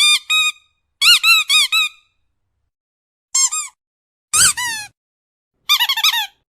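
High-pitched squeaks in quick clusters of one to four, each squeak rising and then falling in pitch, with short gaps between the clusters.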